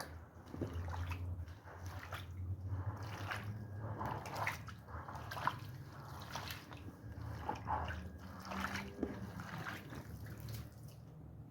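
Water sloshing, trickling and dripping in irregular wet strokes as a soaked wool rug is washed, over a low steady hum.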